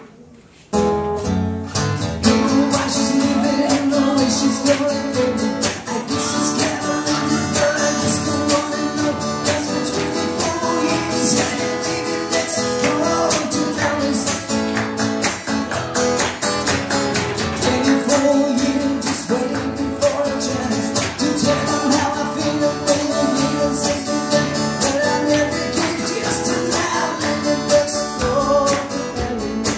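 Acoustic guitar strummed in a live band with a hand drum and cymbal, playing a country-pop song. It breaks off for under a second at the start, then comes back in.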